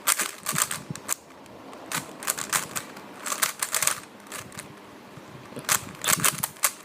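Rubik's Cube layers being turned by hand: quick runs of sharp plastic clicks and clacks in several bursts with short pauses between them.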